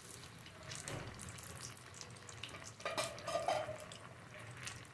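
Vegetable cutlets deep-frying in hot oil, a steady sizzle flecked with crackling pops. About three seconds in there is a louder knock.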